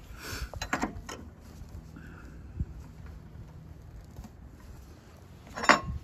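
Table saw's flat stamped arbor wrenches clinking against the arbor nut and blade as they are fitted, just before the nut is tightened: a few light clicks in the first second, a knock midway, and a sharper clack near the end.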